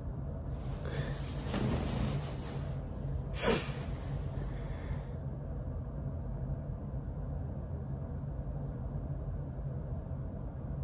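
A person breathing out through the nose a few times in the first half, the loudest breath about three and a half seconds in, over a steady low room hum.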